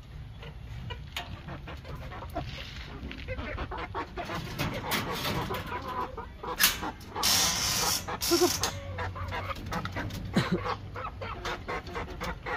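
Chickens clucking, with short repeated taps of a gamecock pecking at feed. About seven seconds in comes a brief clatter and then a longer rattle of a metal latch and wire-mesh cage door being opened.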